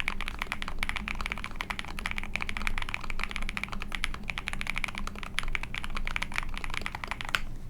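Fast, continuous typing on a KBDFans Mountain Ergo split mechanical keyboard with lubed Tecsee Ice Candy switches, an aluminium plate and ePBT keycaps. The typing stops abruptly near the end.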